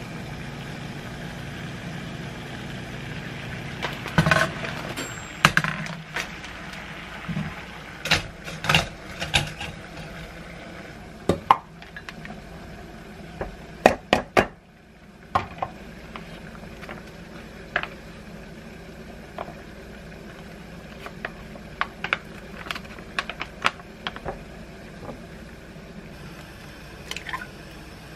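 Kitchen handling sounds: scattered short clinks and taps of cookware, bowls, lids and utensils over a steady low hum, with a quick cluster of taps about fourteen seconds in.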